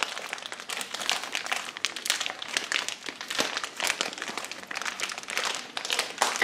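Thin plastic toy packaging crinkling in irregular crackles as it is handled and opened.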